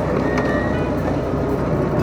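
Background music over the steady running of a mini excavator's engine.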